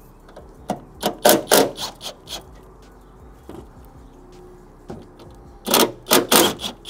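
Ratchet wrench clicking in two bursts as bolts are backed out of the firewall, the second burst near the end the louder.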